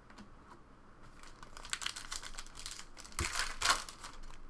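Foil wrapper of a Panini Select Soccer card pack being torn open and crinkled by hand: a run of crackling rustles that grows louder, loudest about three and a half seconds in.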